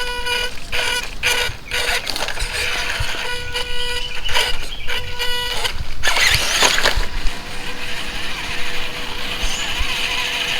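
Electric motor of an RC 4x4 crawler whining at one steady pitch, cutting in and out in short throttle bursts, then running steadily from about seven seconds in. A loud scraping rush about six seconds in.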